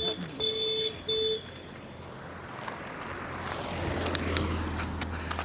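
Three short, steady beeps, then a motor vehicle approaching and going past, swelling to its loudest about four seconds in before fading.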